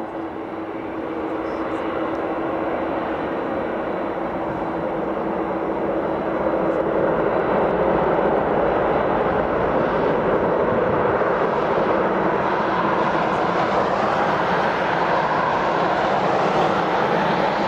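Boeing 747-400 jet engines running as the four-engined airliner taxis slowly on the runway. The engine noise is a steady roar that grows louder about six seconds in and becomes brighter and higher near the end.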